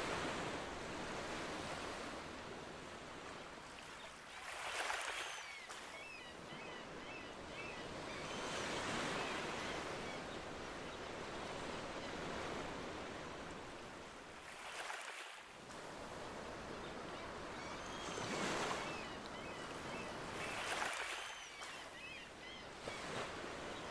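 Ocean waves gently lapping on a beach, a soft steady wash that swells and eases every few seconds.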